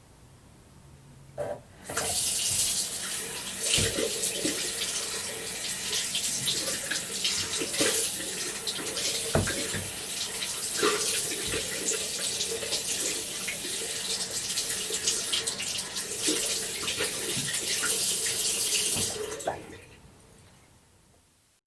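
Bathroom tap running into a sink while hands are washed under it, with small splashes throughout. The tap comes on about two seconds in and the flow dies away a couple of seconds before the end.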